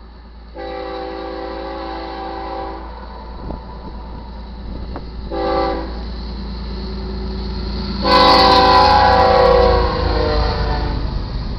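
Air horn of a GE ES44AC diesel locomotive sounding three blasts (long, short, long) over the low rumble of the approaching train. The last blast is the loudest, and its pitch drops near the end.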